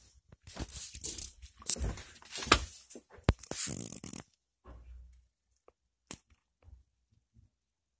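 Close rustling and scraping with several sharp clicks, like hands on the recording device or objects being shifted, loudest about two and a half seconds in with a sharp click just after; after about four seconds it falls away to a few faint ticks.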